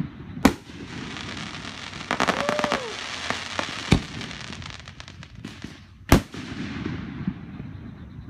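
Aerial fireworks bursting: three sharp bangs, the first about half a second in, the next near four seconds and the last around six seconds. Between about two and three and a half seconds there is a quick run of crackling.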